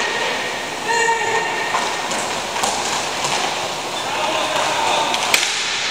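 Roller hockey play: inline skate wheels rolling over the rink floor in a steady rumble, with a short shout about a second in and a sharp crack near the end.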